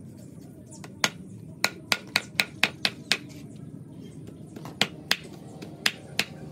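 A series of sharp clicks at a clay charcoal stove: one, then a quick run of seven at about four a second, then two pairs a little apart near the end.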